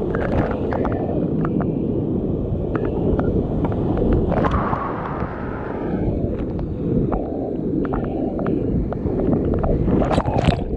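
Whitewater rushing down a granite slide as a kayak runs it, heard as a steady loud rush with water buffeting the helmet-camera microphone and scattered spatters of spray. Near the end comes a louder crash of splashing as the kayak plunges into foaming water.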